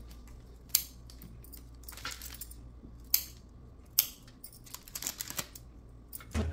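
Scissors snipping through flower stems: a few sharp snips, about a second in and again around three and four seconds in, with lighter clicks in between and after.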